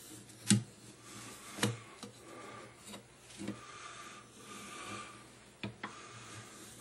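A hand tool rubbing and stroking a brass aiglet blank wrapped on a mandrel that rests on a wooden bench block, with scraping between the strokes. A few sharp clicks and knocks of the tool and mandrel against metal and wood are mixed in; the two loudest come within the first two seconds and two more come close together near the end.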